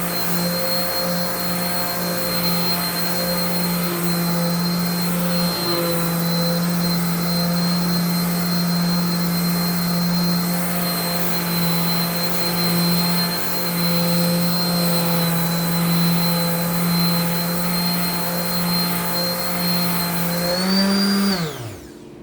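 Electric sander running steadily with a high motor whine, sanding cured epoxy pour fill with 220-grit paper. Near the end its pitch rises for a moment, then it is switched off and winds down.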